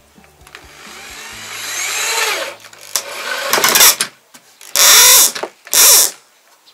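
Power drill working into a wooden formwork board. One long run builds up over the first two seconds or so, then come shorter runs, the last two the loudest, each about half a second long.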